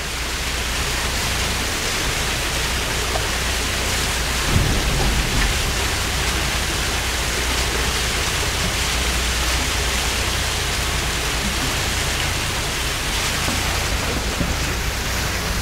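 Glacier meltwater pouring off an ice wall and splashing onto a boat's bow and the sea below, a steady dense rush with a low rumble underneath.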